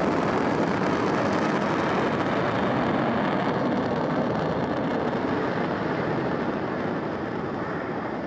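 Roar of a Falcon 9's nine Merlin 1D engines during ascent, a dense steady rumble that slowly fades as the rocket climbs away. About halfway through, its higher hiss drops off.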